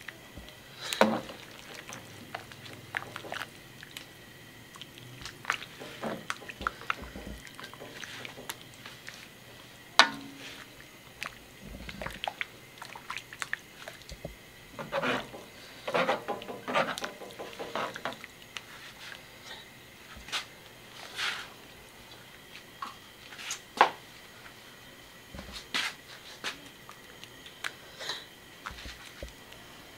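Metal ladle stirring a wok of lomi noodle soup: irregular clinks and scrapes of the ladle against the pan with the broth sloshing, the sharpest knocks about a second in and at ten seconds.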